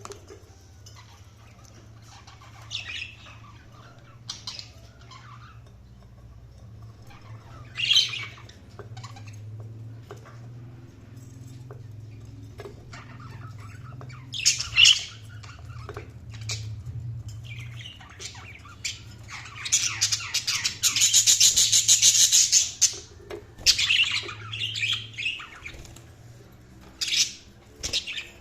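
Budgies chirping and squawking in short, scattered high calls, building to a loud stretch of rapid chatter about two-thirds of the way through. A faint steady low hum runs underneath.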